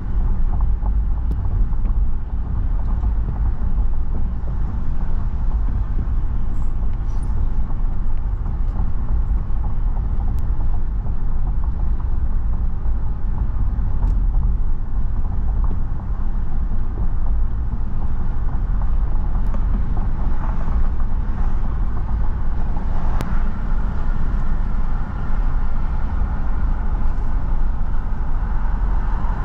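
Steady low rumble of engine and road noise heard inside the cabin of a moving vehicle.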